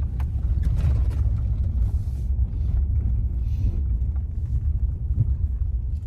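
A car driving, with a steady low road and engine rumble.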